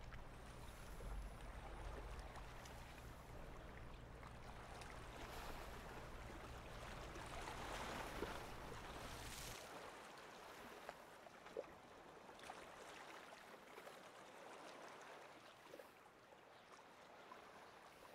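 Faint wash of small waves lapping on a pebbly lakeshore, with a low rumble that drops away about halfway through and a few soft ticks.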